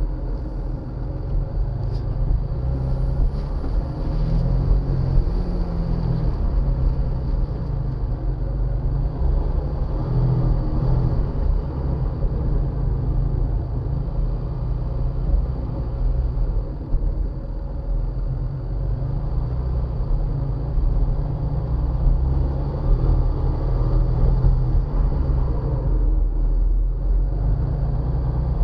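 Jeep Wrangler Rubicon engine running under light load as it drives slowly up a rocky trail, heard from the hood just above the engine, a steady low rumble that wavers a little in pitch with the throttle.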